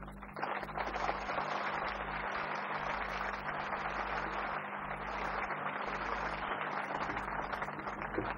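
Audience applauding steadily, over a low electrical hum.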